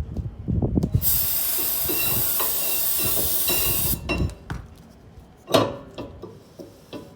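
Aerosol brake cleaner spraying in one steady hiss for about three seconds, starting about a second in, to strip grease off the hub. It is framed by clunks of handling metal parts, with a sharp knock a couple of seconds after the spray stops.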